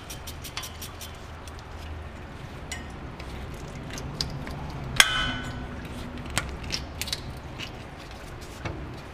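Metal hand tool working a radiator hose clamp: a quick run of sharp ratchet-like clicks at the start, then scattered metal clicks and one loud ringing metallic clink about five seconds in.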